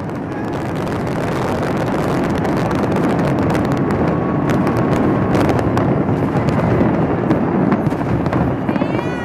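Rooftop fireworks going off in quick succession: a continuous rumble of explosions that swells over the first couple of seconds, with sharp crackling pops from about halfway in.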